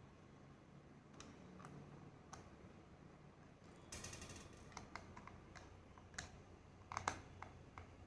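Faint scattered clicks and taps of small tools and plastic parts being handled while a Bluetooth speaker's casing is taken apart. There is a brief scrape about four seconds in and a cluster of sharper clicks near the end.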